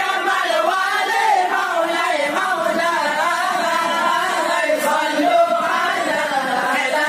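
Group of men chanting Acehnese dike Maulid, a zikir in praise of the Prophet, in unison and without instruments. The melodic line wavers continuously up and down.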